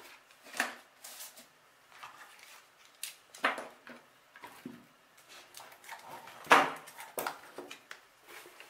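Hard plastic drone accessories (batteries, charging hub) and a carry bag being picked up and set down on a tabletop: irregular clacks and knocks with light rustling, the loudest knock about six and a half seconds in.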